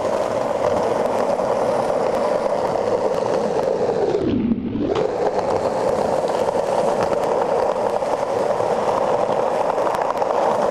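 Skateboard wheels rolling fast over rough asphalt: a steady gritty rumble with many small clicks, easing off briefly about four and a half seconds in.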